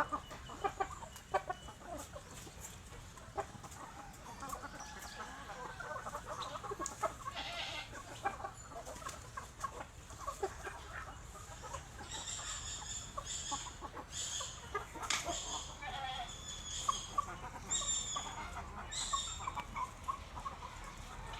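A flock of chickens clucking and calling in many short overlapping calls, with a run of brief high-pitched calls in the second half over a low steady hum.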